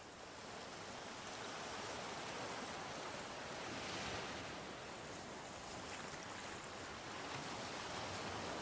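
Sea surf washing onto a beach: an even rushing that fades in over the first second or so and swells gently about halfway through and again near the end.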